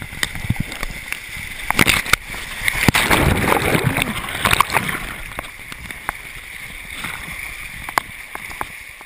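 River rapids rushing and splashing over a packraft and the waterproof camera housing, with sharp knocks and spatters of water striking the case. The splashing is loudest between about two and five seconds in, then eases.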